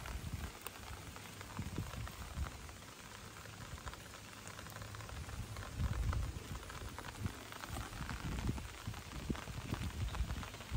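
Light rain falling on pond water and leafy vegetation: a steady patter of many small drops. Low rumbling bursts come through underneath, strongest about six seconds in.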